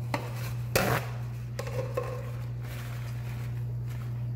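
Paper napkin rustling as it is pulled open and pressed to the mouth, with one sharp crinkle a little under a second in, over a steady low hum.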